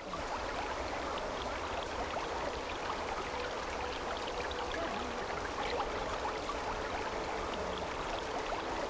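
Shallow rocky stream: water running and trickling over and between stones, a steady babble sprinkled with many small splashes.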